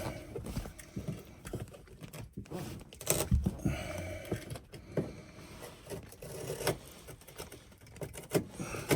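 Scattered clicks, knocks and rustles of hands working headliner material and trim pieces inside a car, with a few sharper knocks.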